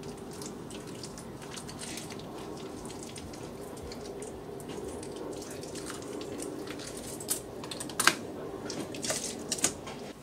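Wet squelching and small clicks of a raw octopus being handled and snipped with kitchen scissors on a cutting board. Several sharper clacks come near the end as the scissors close and are set down on the board. A steady low hum runs underneath.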